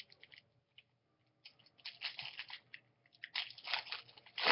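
Topps Chrome baseball cards being slid and flipped against one another in the hand, a crisp scraping with small clicks in two spells, about a second and a half in and again near the end.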